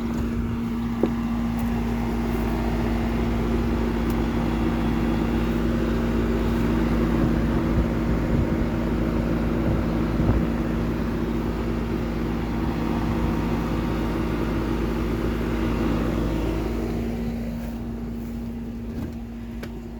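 Air conditioner running: a steady electrical hum under the rush of its fan, the air noise swelling through the middle and fading off after about seventeen seconds. It is running flat out on a hot day, which the owner calls struggling.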